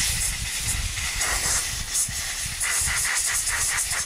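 Compressed-air blow gun on a shop air hose blasting debris out of a Briggs & Stratton engine's sump cover: a loud rushing hiss that breaks into quick short bursts in the last second or so, then cuts off sharply.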